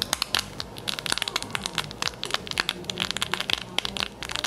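White foam product from an aerosol can crackling in an open palm: a dense run of tiny, irregular pops as the bubbles burst. It sounds like hamburger.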